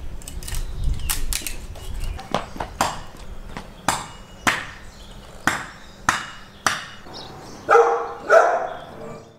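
Hatchet splitting firewood on a chopping stump: a series of sharp, irregular chops, one or two a second. Near the end come two louder, longer sounds.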